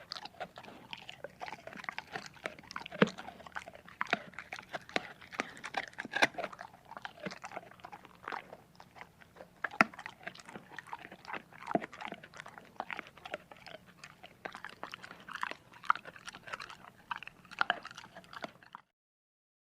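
A dog chewing and crunching its food, with irregular sharp bites and crunches that stop abruptly near the end.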